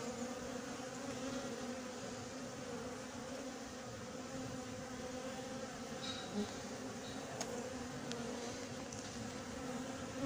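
Steady buzzing hum of a large honeybee cluster swarming over exposed wild comb.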